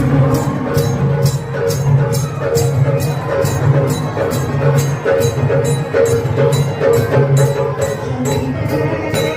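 Folk music with a steady percussion beat of sharp strikes, about three a second, over a pulsing low drum part.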